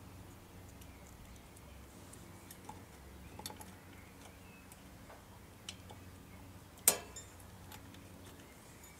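Circlip pliers fitting a steel circlip onto a garden tractor's rear wheel axle: scattered light metallic clicks and ticks, then one sharp snap about seven seconds in as the ring springs onto the axle.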